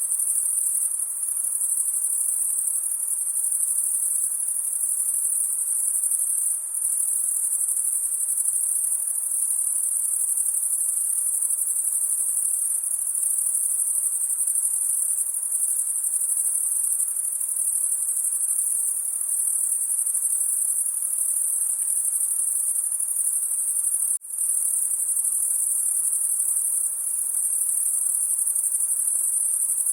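A dense night chorus of crickets, one steady, high trill that doesn't let up, cutting out for an instant about three quarters of the way through.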